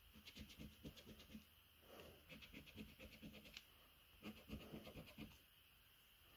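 A coin scraping the coating off a Cashword scratchcard's squares, in three faint bursts of rapid back-and-forth strokes.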